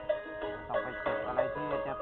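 Background music with plucked-string notes on a regular beat.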